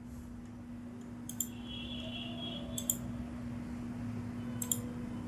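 Three computer mouse clicks, each a quick double tick, spaced about a second and a half to two seconds apart, over a steady low electrical hum.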